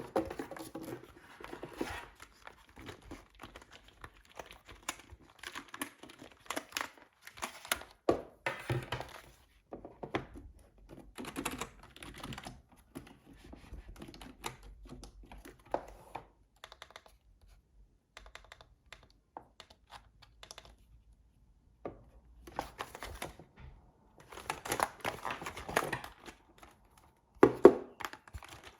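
Packaging and keyboard being handled: plastic and cardboard crinkling and rustling, with irregular clicks and knocks and a pause of a few seconds in the middle.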